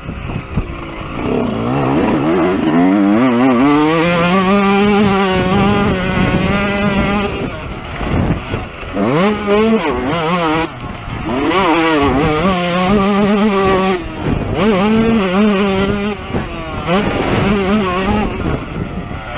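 Yamaha YZ125 single-cylinder two-stroke engine at full race riding, heard from an onboard camera: the revs climb and hold high, then fall away about four times as the throttle is closed and reopened.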